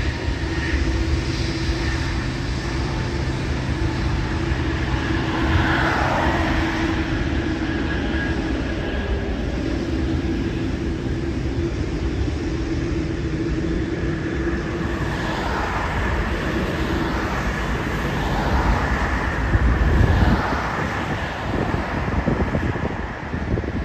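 Jet engines of a Boeing 787 Dreamliner running at taxi power, a steady rumble with a faint hum. Cars swish past on the road several times, the loudest about twenty seconds in.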